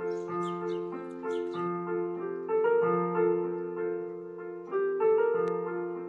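Background music: a slow piano piece with held, overlapping notes.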